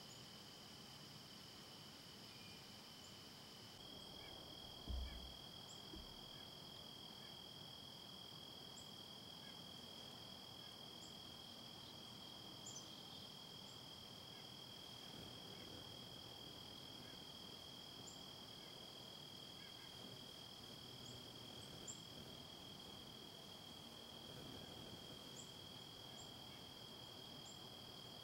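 Faint, steady insect chorus holding two high pitches, with a short, dull low thump about five seconds in.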